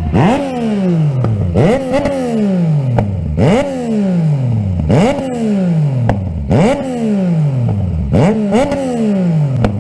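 Yamaha MT-09's three-cylinder engine, fitted with an Akrapovič exhaust, revved hard at a standstill in repeated throttle blips about every one and a half seconds; each rev snaps up and then falls away back toward idle.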